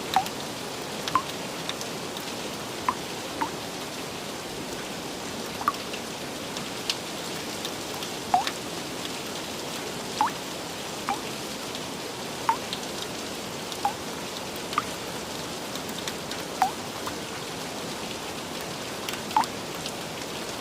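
Gentle rain falling steadily as an even hiss. Separate heavier drops plink on top of it at irregular moments, about one every second or two.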